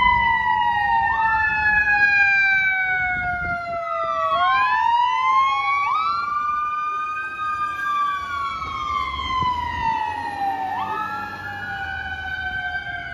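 Fire engine siren wailing in long, slow rising and falling sweeps, with several sweeps overlapping, over the truck's engine and tyre rumble. The siren gets fainter near the end as the truck drives away.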